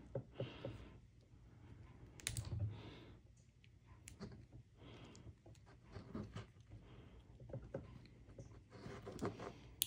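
Faint clicks and small scraping handling noises from a carbon fiber link watch band being worked apart with a pin tool, with a sharper click near the end.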